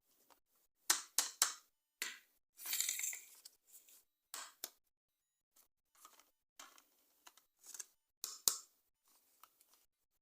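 Plastic toy packaging being handled during an unboxing: a string of short crinkles and clicks, with a longer crinkling rustle about three seconds in.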